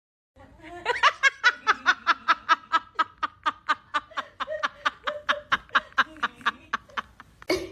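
Someone laughing in a long, even string of short, rapid pulses, about four or five a second, ending with a louder burst.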